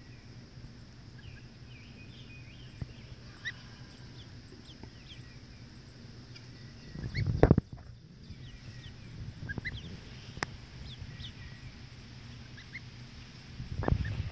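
Goslings and ducklings peeping as they graze: many short, high chirps scattered throughout. A brief, louder low rumbling thump comes about halfway through, and another near the end.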